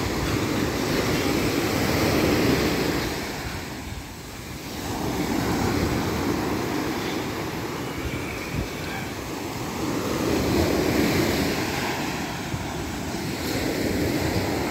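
Sea surf breaking and washing up a sandy beach, swelling and easing every few seconds as each wave comes in.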